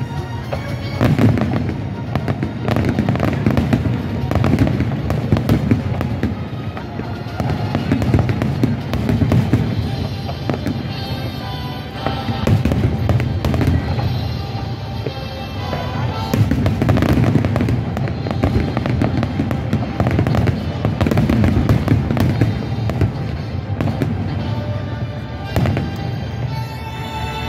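Fireworks going off in a dense, continuous barrage of bursts and crackling with no pauses, with music playing underneath.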